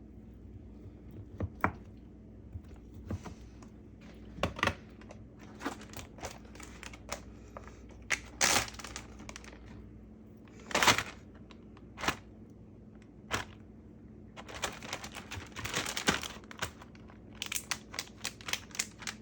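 Kitchen handling sounds: scattered sharp taps and knocks, with crinkling plastic bags, the longest spell of crinkling about three-quarters of the way through, as chicken breast is cut up and bagged.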